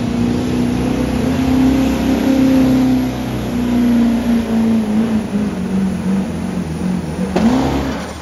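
Chevrolet Silverado diesel pickup's Duramax V8 running flat out under heavy load as it drags a pulling sled, its pitch holding and then sagging as the load builds. About seven seconds in comes a sharp crack and a quick rev up and down, and then the engine drops off as the pull ends.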